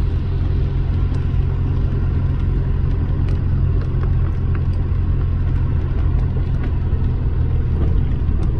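Steady low road and engine rumble of a car driving on a wet street, heard from inside the cabin, with scattered light ticks over it.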